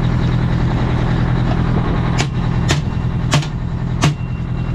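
A Detroit Diesel 8V92 two-stroke V8 diesel idling steadily. Four sharp clicks come over it, from about two seconds in to about four seconds in.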